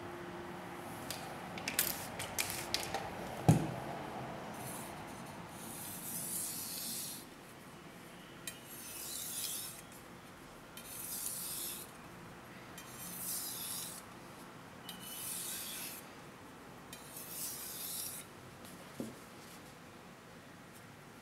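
Japanese gyuto knife being sharpened on an Okudo Suita natural whetstone: about seven hissing strokes of the blade across the stone, each about a second long, roughly every two seconds. Before the strokes begin there are a few light clicks and one sharp knock about three and a half seconds in.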